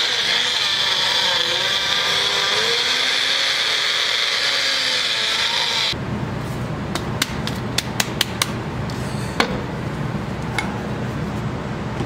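Magic Bullet personal blender running steadily, blending dry LB media premix powder until it is homogeneous while the cup is shaken. The motor cuts off abruptly about six seconds in, followed by a string of sharp clicks and knocks as the plastic cup is twisted off the base and set down on the counter.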